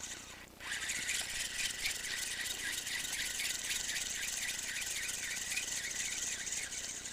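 Spinning reel on a feeder rod being cranked steadily, winding the sounding weight back in: a high-pitched whir with a fast, even ticking, starting about half a second in.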